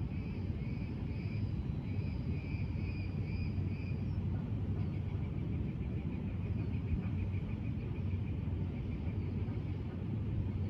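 Steady low background rumble, with insects trilling in a pulsing high chirp that is strongest in the first four seconds and fainter afterwards.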